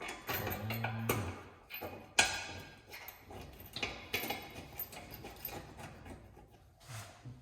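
Irregular metallic clinks and knocks of bolts and hardware being handled and sorted, with one sharp clank about two seconds in.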